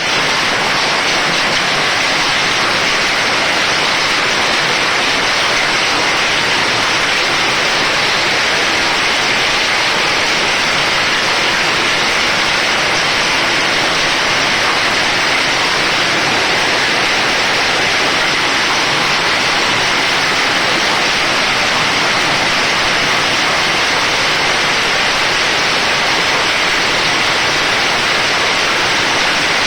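Heavy rain mixed with hail falling, a loud, steady, dense rush of noise that does not let up.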